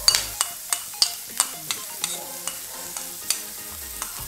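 Chopped onions tipped into hot oil in an iron kadai, sizzling with a steady hiss and sharp, irregular pops and crackles.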